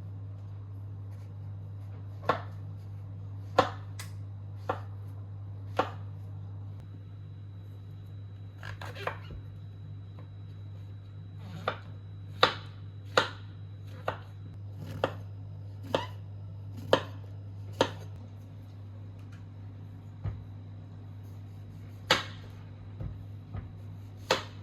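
Knife chopping on a cutting board: single sharp strokes at irregular intervals, about fifteen in all, over a steady low hum.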